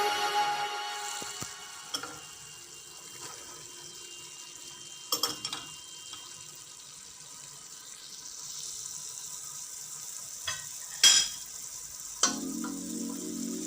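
Food sizzling in a pan during stir-frying, with scattered clicks and knocks of a utensil against the pan. The sizzle grows louder about eight seconds in.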